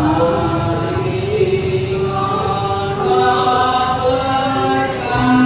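Javanese gamelan ensemble of metallophones, gongs and drums playing, with voices chanting long held notes over it.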